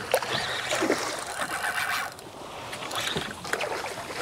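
A hooked sheepshead thrashing at the water's surface, splashing, loudest in the first two seconds and then quieter.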